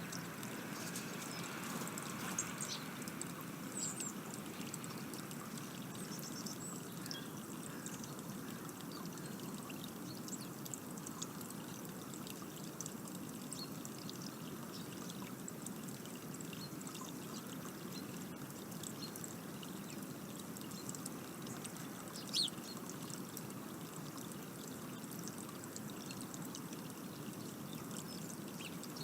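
Steady rushing outdoor background noise with a few short, high bird chirps scattered through it, the clearest one falling in pitch about 22 seconds in.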